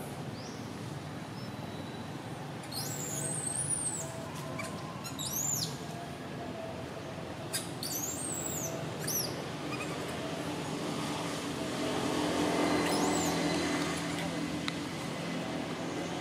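Short high-pitched chirping calls, arching up and falling in quick groups of two or three, recurring a few times over a steady low background hum.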